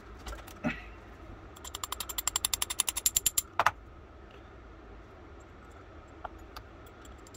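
Quick, even run of small metallic ratcheting clicks, about ten a second and growing louder, ending in a sharper click, with a few light taps later: small metal pistol parts being handled and worked by hand.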